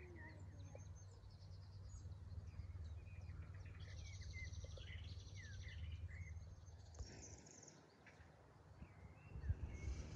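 Faint birds chirping, with a few short calls and two buzzy trills, over a steady low rumble.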